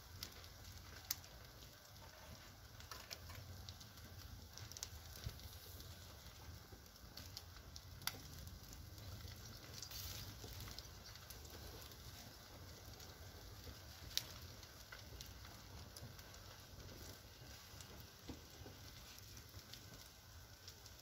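Firewood burning down in a metal brazier, crackling faintly with a few sharp pops.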